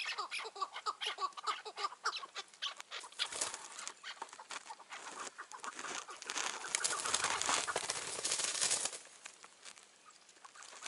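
Chukar partridges calling: a rapid run of short clucking notes that fades after a few seconds. It gives way to a loud rustling, scuffling noise, strongest in the second half.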